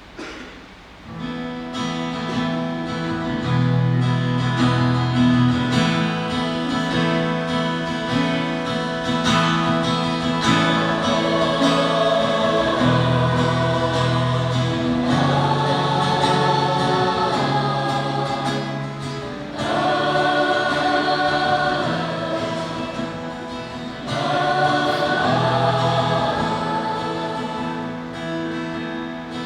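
A choir singing a slow hymn, with a guitar accompanying and long held notes. It is a memorial song.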